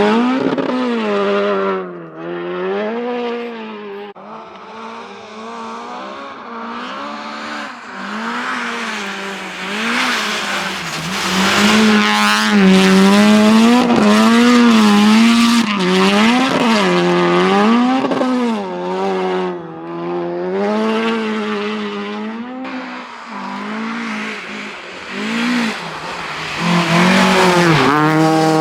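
Rally car engine driven hard along a stage, its revs repeatedly climbing and dropping, about once a second, as the driver works the throttle and gears. It grows loudest in the middle and again near the end.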